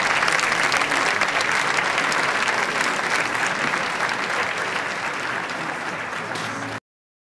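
Audience applauding, a dense patter of many hands clapping that slowly thins and fades, then cuts off abruptly near the end.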